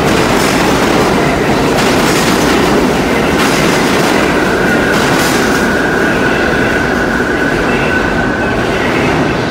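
Bombardier R62A subway train pulling out on the far track, a loud steady rumble with clicks of the wheels over rail joints. A thin steady wheel squeal comes in about halfway through as the last cars go by, and the rumble eases slightly near the end.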